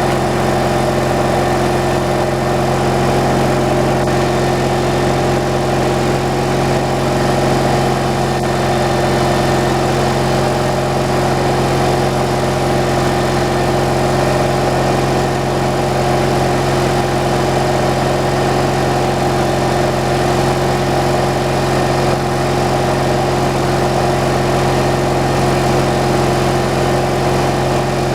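A motor running steadily at constant speed with an even, unchanging hum, with no cutting or load changes heard.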